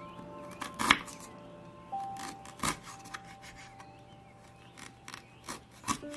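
Soft background music of slow, held notes, with a few sharp clicks and taps from kitchen work. The loudest click is about a second in, with others near the middle and near the end.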